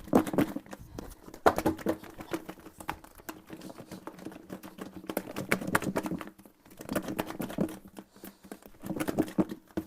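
Sliced cucumber and dressing being shaken hard in a closed container, the slices rattling and slapping against the walls in several bursts of rapid, irregular clatter with short pauses between.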